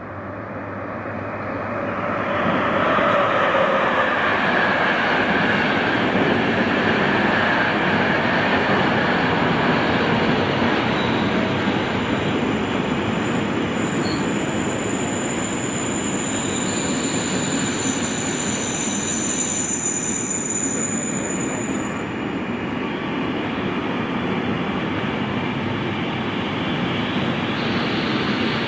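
Container freight train approaching and running through the station: the noise swells over the first few seconds as the locomotive comes near, then holds as a steady rumble of the wagons on the rails. Thin high-pitched squeals come and go through the middle.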